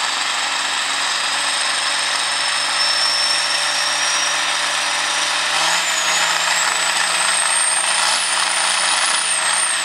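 John Deere farm tractor's diesel engine running hard at full power while pulling the weight-transfer sled, with a high whine that climbs slowly in pitch, jumps higher about six seconds in as the engine speeds up, then drops away right at the end.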